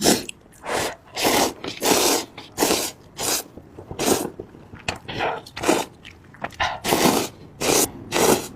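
Hot instant cup noodles being slurped up in a quick series of about a dozen short slurps, close to the microphone.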